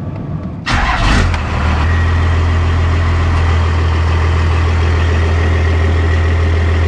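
A 12-valve Cummins diesel in a Dodge pickup starting up. It fires with a loud burst about three-quarters of a second in, then settles within a second into a steady idle.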